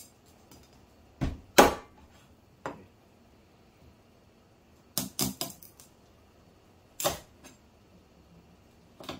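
Scattered sharp knocks and clinks of kitchen utensils and dishes being handled, irregularly spaced, with a quick cluster of four about five seconds in; the loudest knock comes about a second and a half in.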